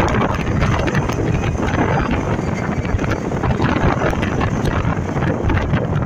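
Truck driving along a paved road: a steady rumble of engine and road noise, heavily mixed with wind buffeting the microphone, with frequent small crackles.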